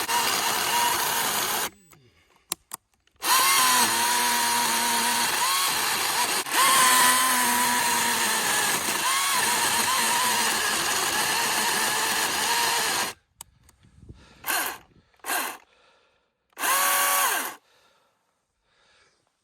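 Milwaukee M18 battery-powered chainsaw with a 16-inch bar making its first cut into a tree trunk. It runs briefly, stops, then runs for about ten seconds with its electric motor whine dipping in pitch under load, and ends with three short bursts.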